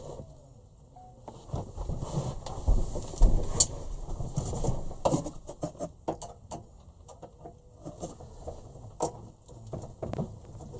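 Scattered clicks, knocks and rustles of hands working at the exhaust pipe clamp of a Truma Combi heater, freeing the pipe from the unit, with a few sharper clicks in the middle and near the end.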